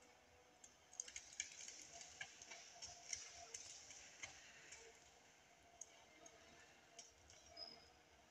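Faint, irregular clicks and crackles, thickest over a few seconds, against near silence.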